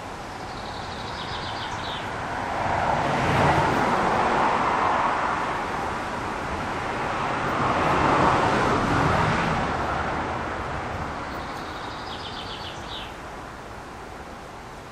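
Two vehicles passing on a road one after the other. Each swells up and fades away, the first loudest about four seconds in and the second about eight seconds in.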